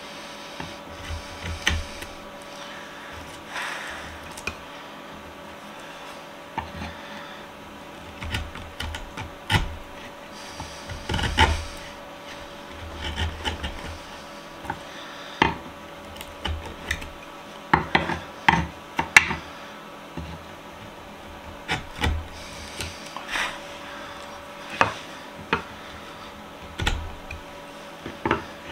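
A hand chisel paring and scraping into old, dry, weathered wood, notching out a recess. It makes irregular short scrapes and sharp cracks as fibres split and chips break away.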